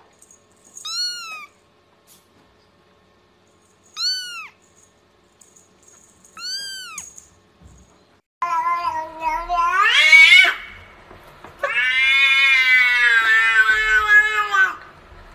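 Three short, high-pitched kitten mews, a few seconds apart. From about eight seconds in, a cat's louder, lower meows follow: one call rising in pitch, then a long drawn-out yowl of about three seconds.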